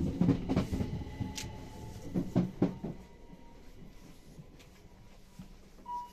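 Electric sliding door between carriages of a Class 377 train opening, with several clunks and rattles in the first three seconds, over the moving train's low rumble. A single chime tone sounds right at the end.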